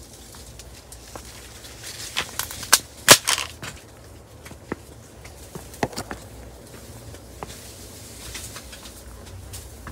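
Footsteps on a path littered with dry cane, the dry stalks and leaves crackling and snapping underfoot. A cluster of sharp snaps comes about two to three and a half seconds in, the loudest just after three seconds, followed by a few single cracks.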